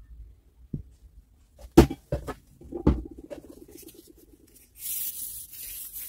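Workshop handling sounds: three sharp knocks of hard parts, a short rattle, then a hiss lasting about a second near the end.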